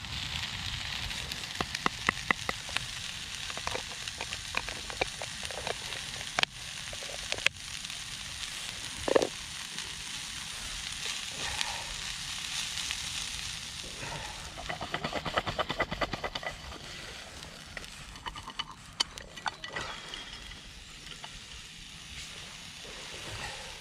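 Meat and chopped onion sizzling in a hinged sandwich-toaster pan over a gas camping stove, with a plastic spatula clicking and scraping as the food is stirred. The sizzle eases somewhat in the last few seconds.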